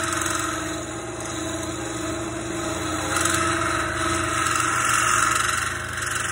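Wood lathe running with a steady motor hum while a turning tool scrapes the spinning wooden dowel. The cutting noise swells and fades as the tool works, loudest in the second half.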